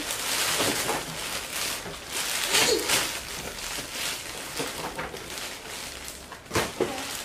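Clear cellophane gift wrapping rustling and crinkling as it is handled, in uneven bursts.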